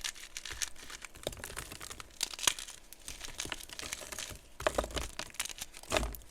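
Block of gym chalk being crushed: dense, fine crackling and crumbling, with a couple of heavier crunches near the end.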